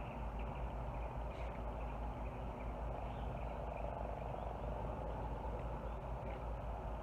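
Steady low outdoor background rumble, with a few faint short high chirps scattered through it.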